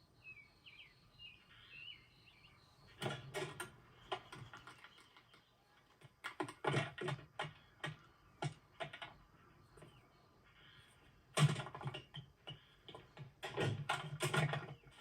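Light clattering: clusters of sharp clicks and knocks, like small hard objects being handled, with the loudest bunch about eleven seconds in.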